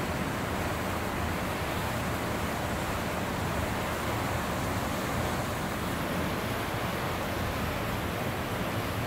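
Steady rushing of river water flowing under a stone bridge.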